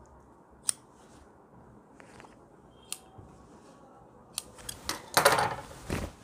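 Large tailor's shears snipping through fabric and gold lace trim: a few separate sharp snips, then a quicker run of snips and louder cloth rustling near the end.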